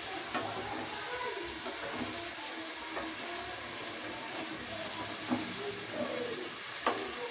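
Chicken mince frying in oil and tomato masala in a pot, sizzling steadily, with two sharp knocks of a spatula against the pot late on.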